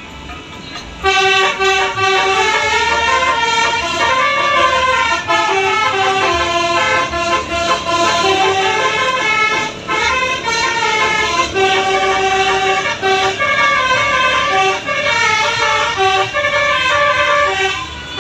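Multi-trumpet 'telolet' bus air horn of 18 trumpets, Basuri type, playing a tune of held notes that step up and down in pitch, starting about a second in.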